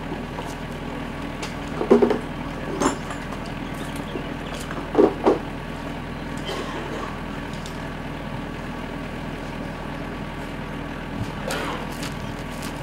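A vehicle engine running steadily, with a few short, louder noises breaking through about two, three, five and eleven seconds in.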